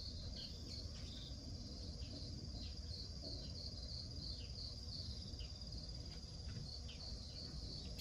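Crickets trilling in a steady, high, unbroken chorus, with faint short chirps now and then.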